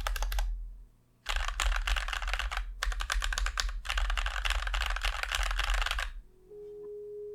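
Mechanical keyboard with Gateron Milky Yellow linear switches being typed on in fast runs of keystrokes, with a brief pause about a second in. The typing stops about six seconds in, and a faint held musical tone comes in near the end.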